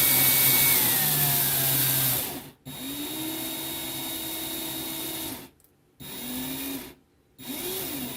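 Cordless drill driving the outlet's mounting screws into the electrical box in short bursts: one loud run of about two seconds, then three shorter, quieter runs, the motor whining up in pitch at the start of each.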